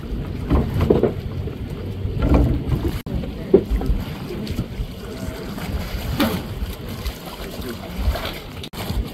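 Wind buffeting the microphone over the rushing of water and a low rumble from a boat under way on the open ocean.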